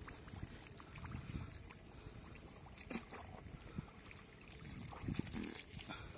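Shallow muddy water sloshing and trickling as someone wades through it and feels around in the mud by hand, with a few small splashes.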